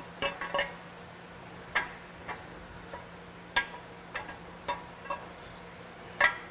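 Camshaft of a Dodge 8.0L Magnum V10 being drawn out of the iron block on a threaded rod, its lobes and journals clinking irregularly against the cam bearings and bores, about a dozen sharp metal clicks with the loudest knock near the end.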